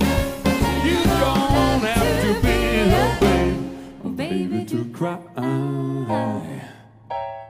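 Live band playing the close of a song: the full band with a steady beat until about halfway, then the beat drops out and a few separate sustained chords ring out and fade.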